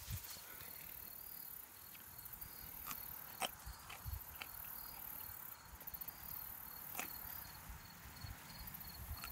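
Crickets chirping in a faint, steady, regular pulse, with two sharp clicks about three and a half and seven seconds in.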